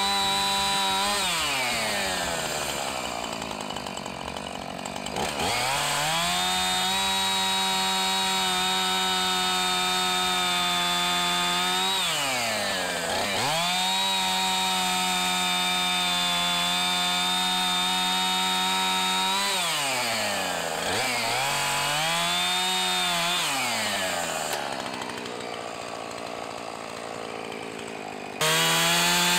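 Chainsaw engine revved up to high speed and held steady for about six seconds at a time, twice, dropping back toward idle in between. It gives a shorter rev a little later and jumps straight back to full speed near the end.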